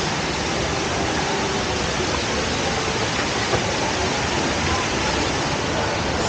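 Steady rushing of a large indoor man-made waterfall, water pouring down continuously. There is a brief small click about halfway through.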